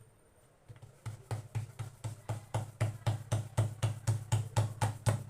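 Hands patting a ball of jowar (sorghum) flour dough flat on a paper-lined board, shaping a dhapate like a bhakri. A steady run of soft thumps, about four a second, starts about a second in and grows a little louder.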